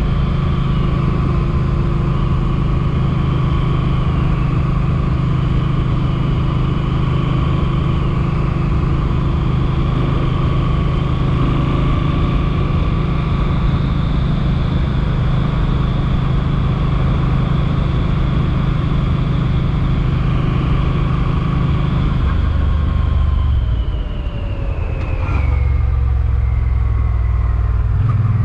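Suzuki Boulevard M50's V-twin engine running steadily at riding speed. About 22 seconds in the engine note drops and the pitch slides down as the bike slows; near the end it picks up again.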